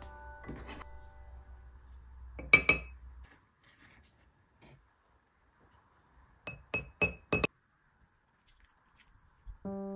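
A white ceramic mug clinking: a loud double clink about two and a half seconds in, then four quick, ringing clinks a few seconds later. Soft piano music plays at the start and comes back near the end.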